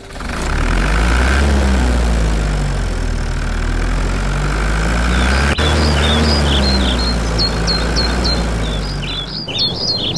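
Tractor engine sound effect running with a steady low rumble, its engine note rising and falling twice. Birds chirp over it from about halfway through. The engine fades out near the end, leaving the chirping.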